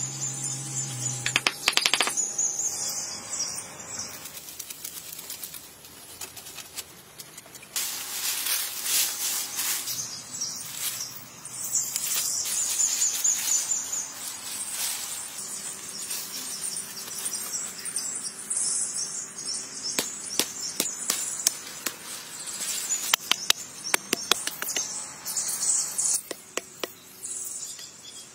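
Forest background of insects and birds, with scattered clicks and scraping noises from hand work in soil and leaf litter.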